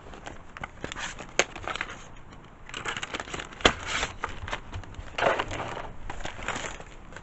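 Handling and packing items into a box: crinkling and rustling with scattered clicks and knocks, the sharpest a single click about halfway through.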